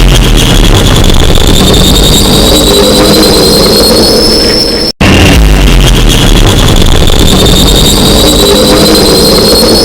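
A loud horn sound effect played on a loop: a sustained blare with a high whine that slowly rises in pitch. It cuts out for an instant about five seconds in, and the loop starts over.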